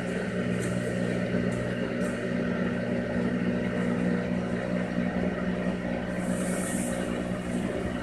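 Washing machine running a wash cycle, its drum tumbling: a steady motor hum with faint light ticks now and then, and a brief hiss about three-quarters of the way through.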